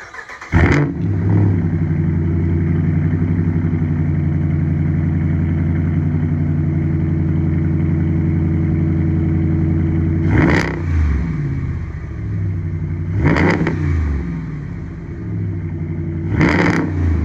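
A 2014 Ram 1500's 5.7 Hemi V8, still on its stock cam, through a Black Widow Widowmaker muffler with the resonator deleted. It fires up just after the start, settles into a steady idle, then takes three short revs in the second half, each falling back to idle.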